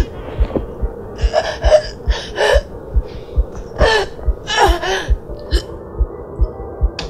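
A woman's ragged, strained gasps for breath, four or five of them, during an asthma attack, over a steady thudding heartbeat sound effect that beats in lub-dub pairs.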